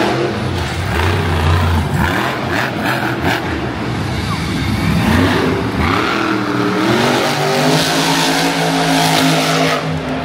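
Monster truck engine revving, its pitch rising and falling repeatedly, then holding steadier near the end.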